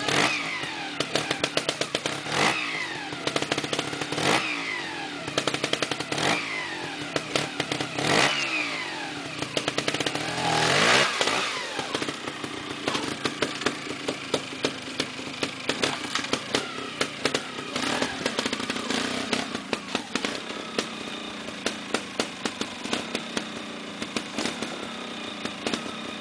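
A trials motorcycle engine is blipped over and over as the bike climbs a rocky section, each short burst of revs falling away, about every two seconds. About 11 s in comes a bigger burst of throttle. After that the engine runs low, with many sharp clicks and knocks.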